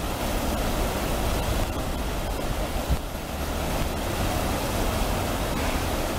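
River water rushing steadily over a low weir, with wind rumbling on the microphone underneath.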